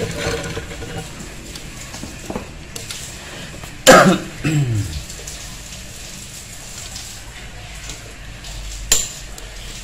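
Metal hand tools, a screwdriver and a wrench, clicking and ticking against the bolts and case of a Honda Supra X 125 engine being dismantled. About four seconds in, a loud, short throaty vocal sound from a person falls in pitch, and a sharp click comes near the end.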